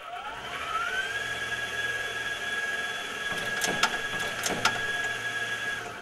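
Wheeled excavator's hydraulics whining as it lifts its clamshell bucket: the whine rises in pitch over the first second, then holds steady until near the end. Four sharp clicks come in pairs around the middle.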